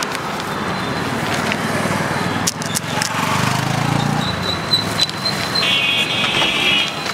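Busy street ambience: traffic noise and background voices, with a few sharp clicks. A thin, high steady tone comes in about four seconds in and holds for roughly three seconds.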